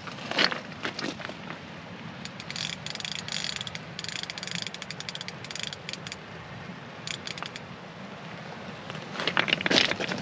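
Fishing reel being wound in short spells, a rapid ratchety clicking, on a beach rod that has just shown a bite.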